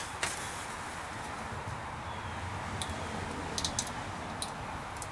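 A few faint light clicks and ticks of corrugated plastic split loom being handled as wires are worked into it, over a steady background hiss.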